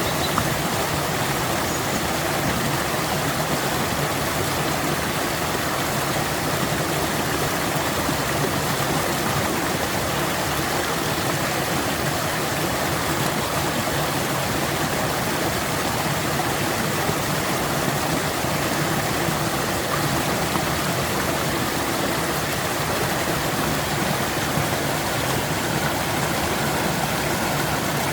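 A stream flowing, a steady, unbroken sound of running water.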